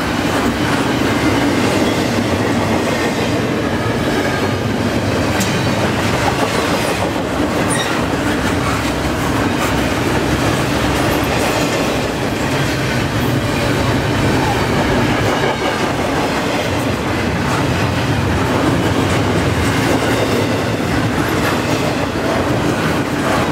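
Double-stack intermodal well cars of a freight train rolling past at about 44 mph: a steady, loud rumble and rattle of steel wheels on the rails.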